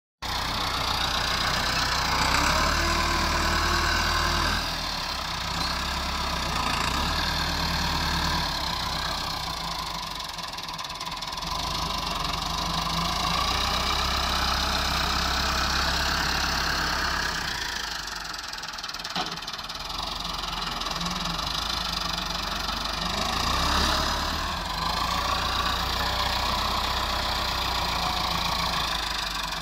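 Massey Ferguson 385 tractor's four-cylinder diesel engine running steadily under load while pulling a rear-mounted implement through loose soil. The engine note swells and eases several times as the load changes.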